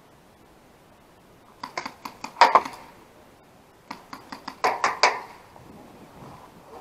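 Two quick strings of paintball shots, about eight sharp pops each, the second starting about a second after the first ends.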